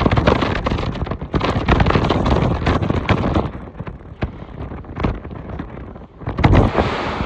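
Hurricane-force wind blasting the microphone, loud and gusty, with many short sharp buffets; it eases for a moment about four seconds in, then gusts up again near the end.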